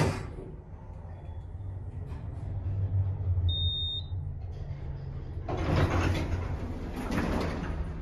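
Otis passenger elevator car with a steady low hum, a short high electronic beep about three and a half seconds in, then the center-opening doors sliding open in the last couple of seconds.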